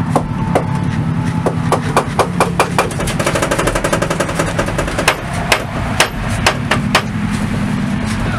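Loose drive shaft of a non-running Subaru Legacy wagon spinning and banging against the ground as the car rolls, over a low steady rumble. The knocks come irregularly at first, run into a fast clatter about three seconds in, then give way to a few heavier, separate bangs about two a second.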